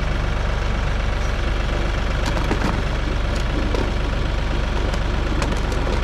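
Tractor engine idling steadily, with a few faint knocks of potatoes tumbling from the front-loader bucket.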